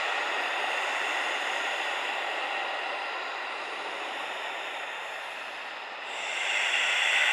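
Heavy human breathing, close and breathy: one long breath slowly fading, then the next breath swelling in louder about six seconds in.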